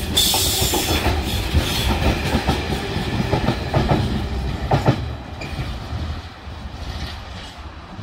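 Loaded open box wagons of a freight train rolling past close by, their wheels clacking over rail joints, then fading away after about five seconds as the end of the train goes by.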